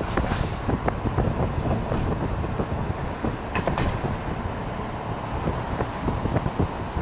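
Noise inside a moving vehicle: a steady low rumble of the ride with frequent small rattles and creaks, and two sharper clicks about three and a half seconds in.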